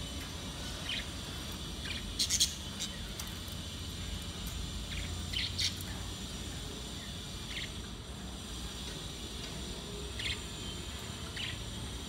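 Pet budgerigars chirping in their cage: short, separate chirps every second or two, the loudest a quick pair about two seconds in, over a steady low background hum.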